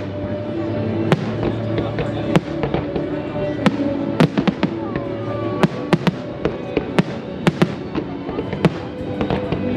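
A fireworks display: aerial shells bursting in a dozen or more sharp bangs at irregular intervals, with music playing underneath.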